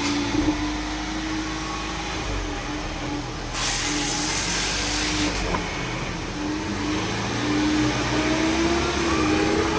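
Failing rear differential of a 2020 Ford Mustang EcoBoost whining steadily under road and drivetrain rumble while driving, its pitch wandering and rising slightly later on; the constant whine is the sign of a bad differential. A rushing hiss cuts in for a couple of seconds near the middle.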